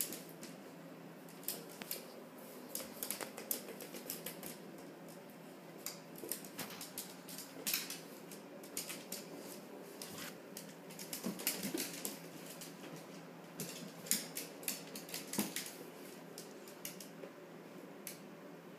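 A Shiba puppy's claws clicking and tapping irregularly on a wooden floor as it scrambles after a ball, in scattered clusters of sharp clicks over a steady low hum.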